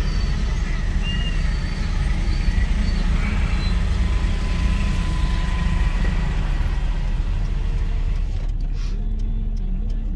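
Steady low rumble of a car engine and street traffic as the car reverses out of a parking spot into a busy road.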